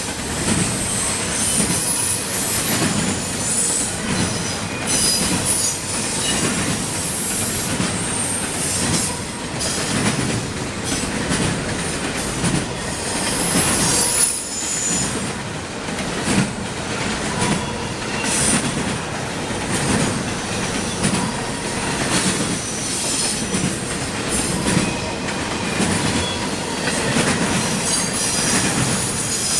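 CSX intermodal freight train rolling past, its wheels squealing on the rails in high-pitched screeches that come and go, over the clickety-clack of wheels on the track.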